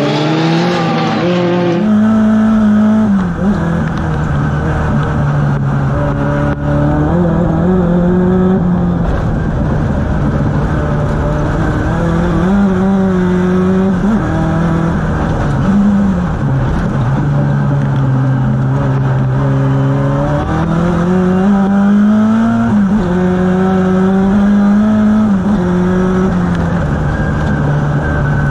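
Renault 5 Turbo's turbocharged four-cylinder engine heard from inside the cockpit at racing pace. The revs climb and then drop sharply, over and over, with gearchanges and lifts for corners. The first couple of seconds are cars running on the circuit, heard from trackside.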